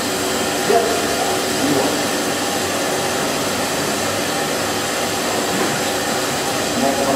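Brewery machinery running with a loud, steady whirring rush and a faint hum.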